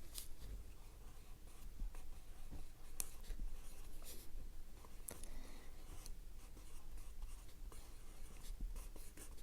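Sakura SumoGrip 0.9 mm mechanical pencil writing on lined notepad paper: the lead scratches across the page in quick, irregular strokes.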